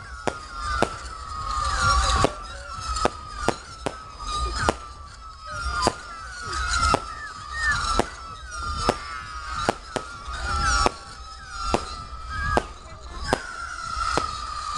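Aerial fireworks going off: a string of sharp bangs, roughly one a second, with whistling tones gliding up and down between them.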